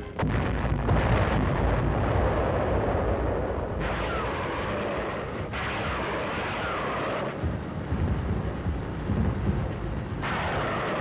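Explosions and artillery fire rumbling on without a break, beginning with a sudden blast just after the start. Fresh blasts come about four, five and a half and ten seconds in.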